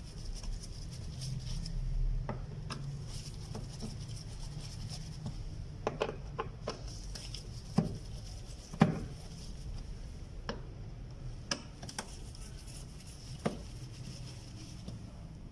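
Phillips screwdriver undoing the small screws of a Renault Logan's plastic air filter housing cover: scattered small clicks and taps of the metal tip and screws against the plastic, the sharpest about eight and nine seconds in, over a low steady hum.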